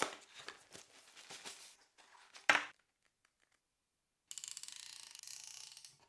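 Cardboard packaging slid apart and handled, rustling and clicking, with one sharp snap about two and a half seconds in. After a short pause, the docking station's folding metal phone stand ratchets with rapid clicking as it is adjusted.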